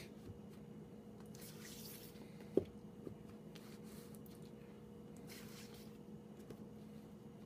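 Faint rustling of shrink-wrapped LP record sleeves being handled and swapped, twice, with one sharp click or tap about two and a half seconds in, over a low steady hum.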